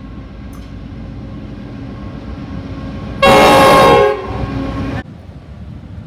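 Diesel locomotive's air horn giving one loud blast of just under a second, about three seconds in. A steady low rumble from the approaching train runs underneath.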